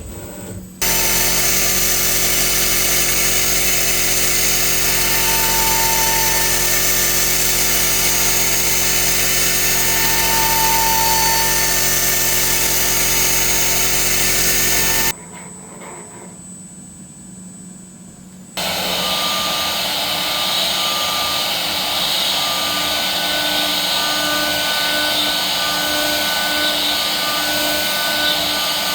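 CNC milling machine spindle running steadily at high speed while a thread mill cuts a thread into metal by circular (helical) interpolation, a dense whine with several fixed tones. The sound changes abruptly twice: it drops to a quieter stretch in the middle, then returns with a different set of tones and a faint pulse about once a second.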